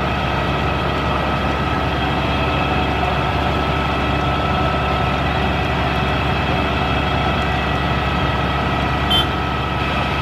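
Fire truck engine running steadily at a constant speed, with a brief click about nine seconds in.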